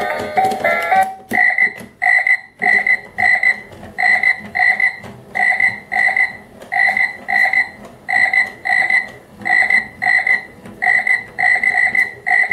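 Battery-powered toy frog playing its electronic croaking sound through a small speaker: short, tinny croaks repeated about twice a second, often in pairs. A click about a second in cuts off a short electronic melody, and the croaking begins right after.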